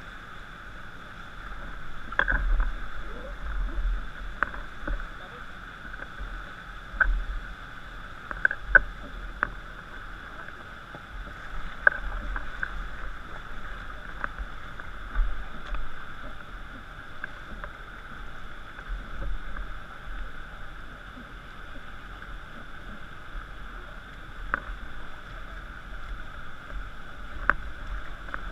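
Steady rush of river water around an inflatable raft, with scattered sharp knocks and taps throughout, a few of them much louder than the rest.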